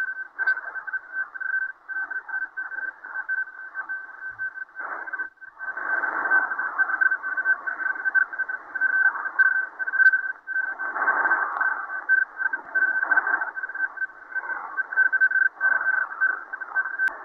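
Shortwave radio in USB mode playing a military digital data transmission: a steady high tone broken into rapid pulses over a choppy, hissy band of data noise. It drops out briefly about five seconds in and again about ten seconds in.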